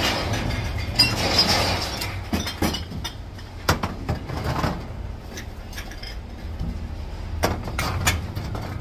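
Empty aluminium drink cans and plastic bottles clinking and clattering at irregular intervals as they are handled and sorted, over a steady low rumble.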